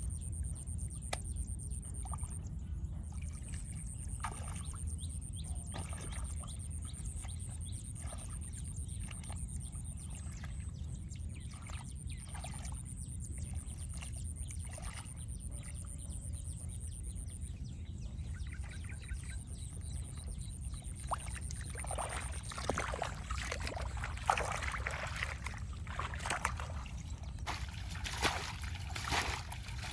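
Water sloshing and trickling over a steady low rumble, with small scattered splashes that grow busier and louder in the last several seconds. A thin, steady high tone runs faintly through most of it.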